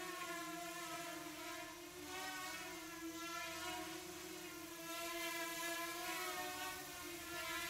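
Small quadrotor's electric motors and propellers whirring steadily in flight, a layered hum whose pitch wavers slightly as the drone maneuvers.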